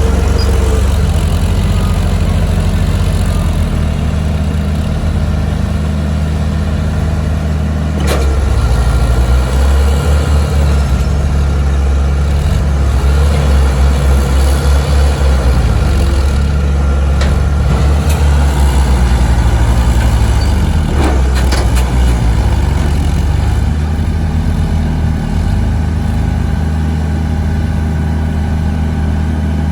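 Komatsu D31A bulldozer's diesel engine running steadily, its pitch shifting up and down as the load changes through the middle. There is a sharp knock about eight seconds in and a few more later.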